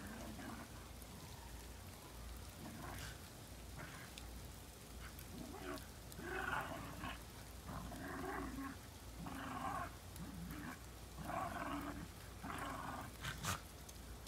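Two Shiba Inus play-fighting, giving a series of short growls in the second half, with two sharp snaps near the end.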